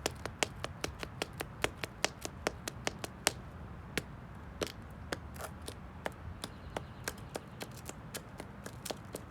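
Black slingback high heels striking concrete in quick rhythmic taps, about five a second, thinning to a few scattered taps midway before picking up again.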